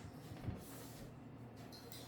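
Quiet room sound with a low steady hum, a soft thump about half a second in, then a brief high hiss.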